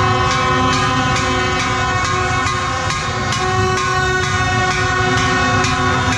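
A celebrating crowd blowing many horns in long, overlapping held tones at several pitches over a steady drumbeat of about two beats a second.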